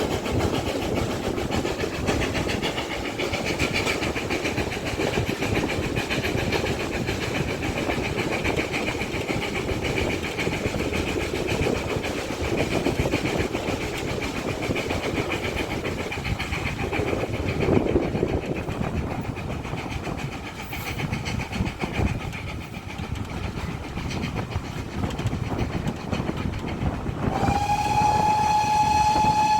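Steam train running at speed, a steady rumble of wheels and carriages. Near the end, the GWR Manor-class 4-6-0 locomotive 7828 Odney Manor sounds one steady whistle of about two seconds.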